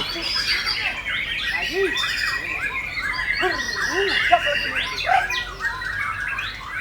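Several white-rumped shamas (murai batu) singing against each other, their rapid whistled phrases, chirps and harsh squawks overlapping thickly, with held whistles running through.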